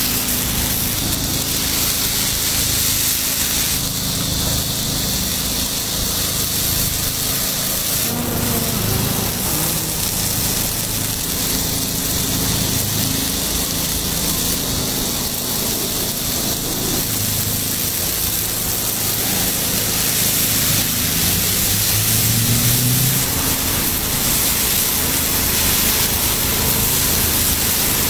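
Takoyaki batter sizzling steadily in a hot cast-iron takoyaki pan, a constant hiss, over a steady low machine hum.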